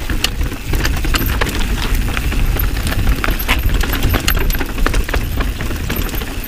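Enduro mountain bike rattling down a rough trail: a dense, irregular clatter of chain slap and frame and component rattle over a steady low rumble of tyres and wind on the helmet or chest-mounted action camera.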